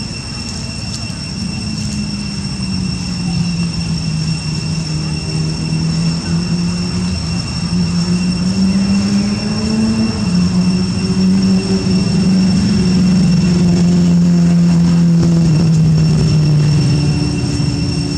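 A motor running with a low hum that slowly wavers in pitch and grows louder, over a steady high-pitched whine.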